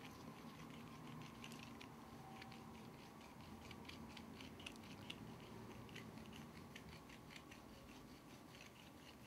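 Near silence: faint steady room hum with scattered soft ticks and scratches from hand work on the face with a microneedle roller and gauze.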